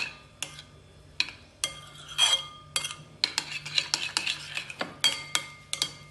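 A utensil stirring a thick homemade hair-mask mixture of cooked pumpkin, oil and egg yolk in a bowl, clicking and knocking against the bowl in quick, irregular strokes, with a short lull in the first second or so.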